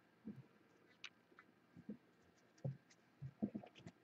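Faint handling of a stack of football trading cards: scattered soft knocks and light clicks as the cards are picked up and shuffled, with a sharper click near the end.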